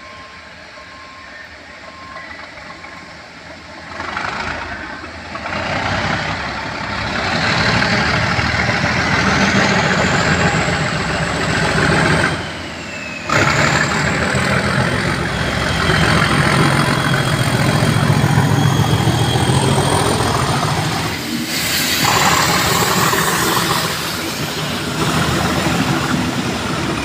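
Two Class 37 diesel-electric locomotives with English Electric V12 engines, top-and-tailing a rail head treatment train, running through the station. The engine sound builds from about four seconds in as the leading loco approaches, with a thin high whistle rising in pitch. Then the loco, the tank wagons and the rear loco pass with a loud, steady rumble.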